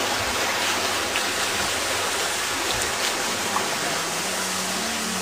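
Steady rushing of water on a beach, where small waves wash the shore and a waterfall pours down the cliff. A few low music notes come in near the end.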